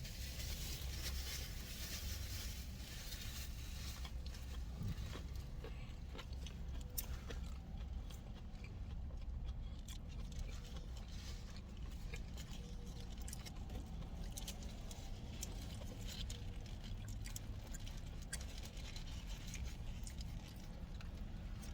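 Close-up eating sounds: chewing and small clicks and crackles of handling food, over a steady low hum inside a car.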